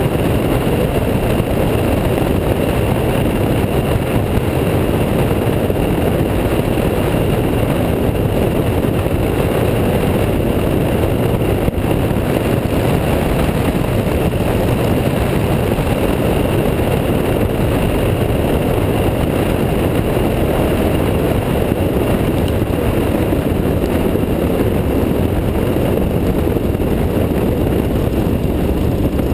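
Steady, loud rush of engine, propeller and slipstream noise heard from a camera mounted outside under the belly of a Van's RV-7A light aircraft, with a faint steady high whine, through a final approach and landing on a grass strip.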